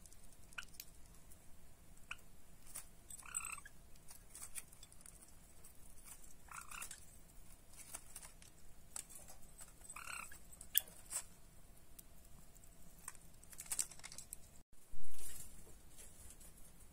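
Java sparrows pecking and scratching in straw and at a seed dish, with many small sharp clicks and three short call notes a few seconds apart. One loud sudden bump near the end.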